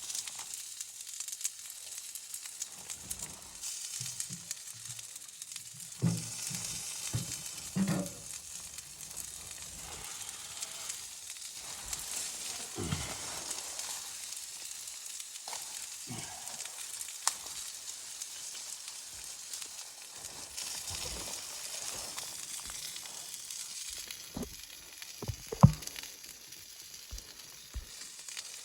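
Food sizzling as it fries in a pan, stirred with a utensil, with a scattering of short knocks and scrapes against the pan, the loudest near the end.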